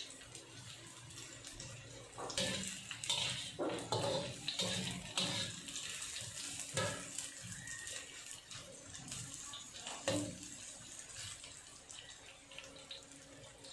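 Sliced garlic, shallots, ginger and onion sizzling in hot oil in a wok, being sautéed until golden. A metal spatula scrapes and knocks against the wok in a run of sharp strokes between about two and ten seconds in, loudest around the tenth second.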